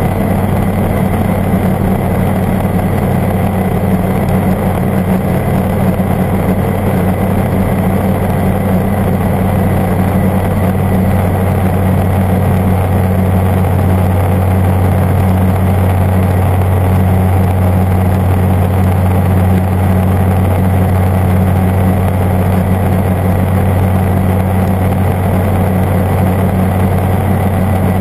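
Airbike ultralight's engine and propeller in level flight, a steady low drone that holds the same pitch and level throughout.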